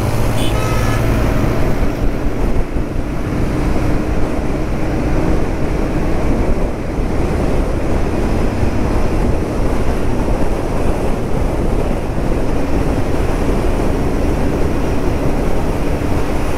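Wind rushing over the microphone of a moving Royal Enfield GT 650 motorcycle, with its engine running steadily underneath.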